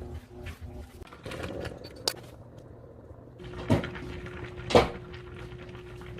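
Kitchen handling noises: scattered light knocks and clatter, with two louder knocks about four and five seconds in, over a steady hum that starts about three seconds in.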